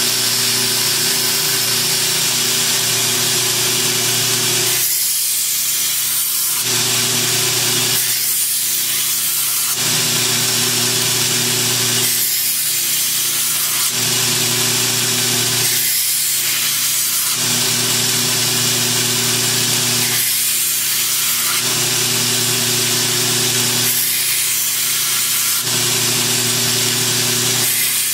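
Belt grinder running a 60-grit ceramic belt, grinding the steel edge of a kukri machete in repeated passes. The motor hums steadily while the grinding hiss drops briefly about every four seconds as the blade comes off the belt between passes.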